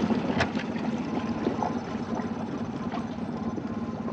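Small outboard motor on an inflatable tender running steadily at low idle speed, with a few faint ticks.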